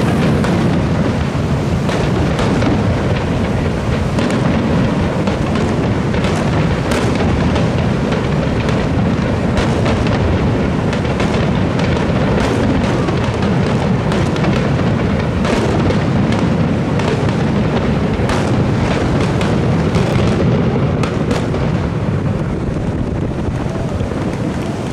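Fireworks display: aerial shells bursting in close succession with booms and crackling over a continuous rumble, thinning slightly near the end.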